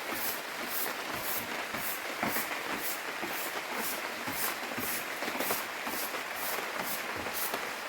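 Steady rain falling, with a high hiss that pulses about twice a second.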